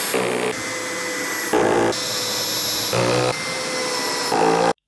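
Cordless drill-driver whining as it drives long assembly screws into the panels of an IKEA Kallax shelf, in several back-to-back stretches that shift suddenly in pitch and load.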